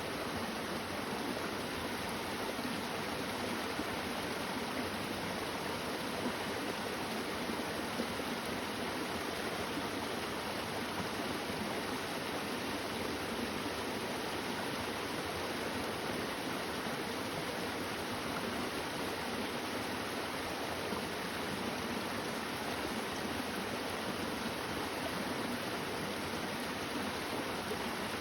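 A flowing stream or river, a steady, unbroken rush of water that does not change.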